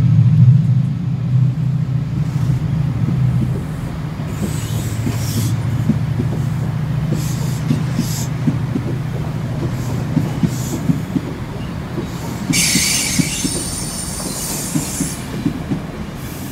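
Locomotive-hauled Chiltern Railways coaches rolling slowly out past the platform. The Class 68 diesel locomotive's engine hum fades away in the first few seconds. After that the wheels click steadily over the rail joints, and the flanges squeal in short bursts, the longest about three-quarters of the way through.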